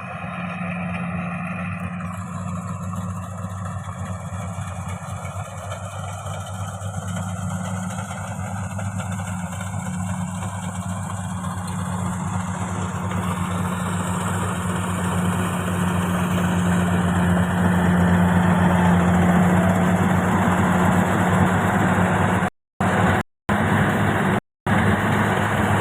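Rice combine harvester's diesel engine running steadily with a low, even drone, growing louder over the first two-thirds. Near the end the sound cuts out completely for a moment three times.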